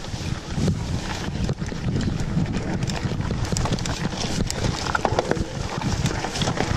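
A mountain bike riding a forest trail: a continuous low rumble of tyres rolling over dirt and stones, with frequent sharp rattling knocks as the bike clatters over roots and rocks.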